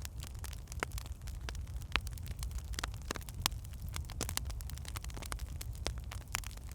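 Wood fire burning in a fireplace, logs crackling with irregular sharp pops and snaps over a steady low rumble.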